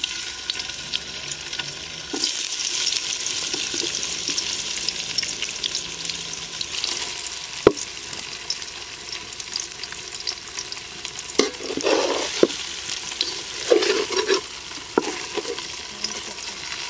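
Paneer cubes sizzling as they fry in hot oil in a metal wok; the sizzle rises sharply about two seconds in as the cubes go into the oil. In the second half a flat steel spatula knocks and scrapes against the pan several times as the cubes are turned.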